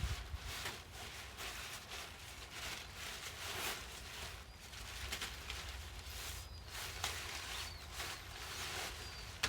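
Fabric of a pop-up shower tent rustling in uneven swishes as its sprung frame is bent and twisted into a folded circle.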